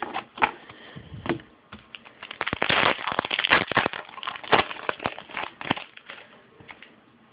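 Football trading cards being handled and flicked through: a run of quick clicks and crinkling rustles, densest in the middle and thinning out near the end.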